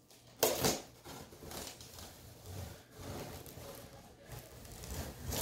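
A knife blade slicing through packing tape along the top seam of a cardboard box, scraping on the cardboard, with a short, louder crackle of tape about half a second in.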